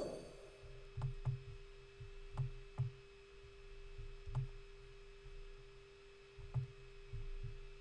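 Faint computer-mouse clicks while the view is dragged, often in press-and-release pairs a few tenths of a second apart, each with a dull low thump, over a steady hum. A sharp ringing knock comes at the very start.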